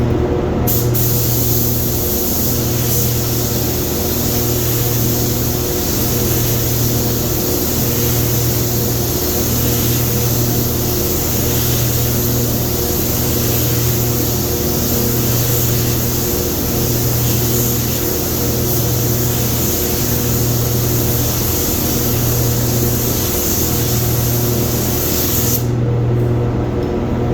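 Automotive paint spray gun spraying clear coat, a long steady hiss of air that starts about a second in and cuts off near the end. Underneath runs a steady low machine hum that swells and fades about every two seconds.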